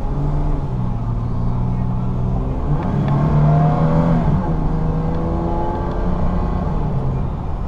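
A Toyota Tacoma's 3.4-litre V6 engine, heard from inside the cab, revving hard under acceleration. Its pitch climbs, then drops back about four seconds in as the automatic transmission shifts up.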